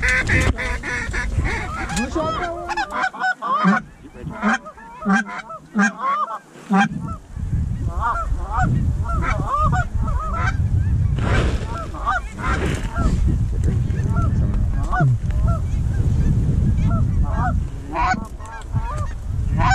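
Geese honking over and over in a rapid chorus of short calls, with wind rumbling on the microphone.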